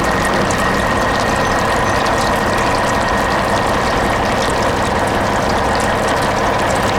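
A machine running steadily: a dense, even mechanical noise with a faint high tone and fine rapid clicking.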